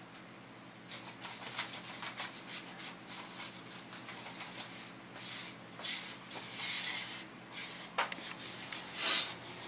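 Wooden stir stick scraping and rubbing around the inside of a plastic cup as epoxy is mixed by hand. The quick, irregular strokes start about a second in.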